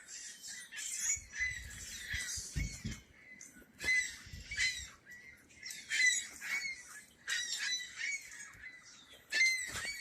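Birds calling, many short calls coming one after another and overlapping at irregular intervals.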